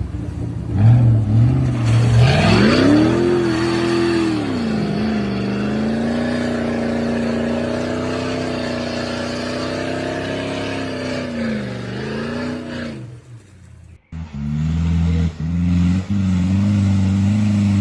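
An off-road 4x4's engine revving up hard about two seconds in, held at high revs for about ten seconds, then dropping back. After an abrupt cut, another engine runs steadily at lower revs.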